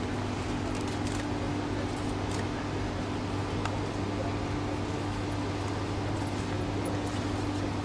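A steady low mechanical hum over even background noise, with a few faint clicks.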